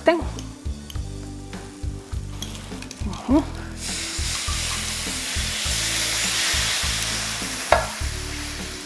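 Cold milk and cornstarch mixture poured into a hot electric skillet of sautéed leeks, starting to sizzle about four seconds in, swelling, then slowly easing as more liquid goes in. A single sharp knock comes near the end.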